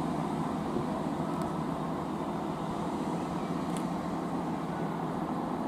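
Class 165 Networker Turbo diesel multiple unit approaching slowly along the platform, its diesel engines and wheels giving a steady running sound.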